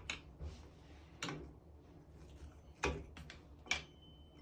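A handful of sharp clicks and knocks, irregularly spaced: about six in four seconds, the loudest near the end, over a faint steady low hum.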